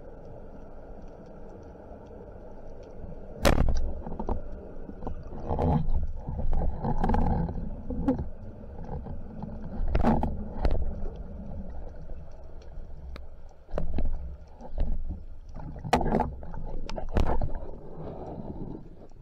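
Underwater: a single sharp crack about three and a half seconds in as a rubber-band speargun fires, then irregular knocks, scrapes and rushes of water as the diver hauls in the shooting line and swims up with the speared fish.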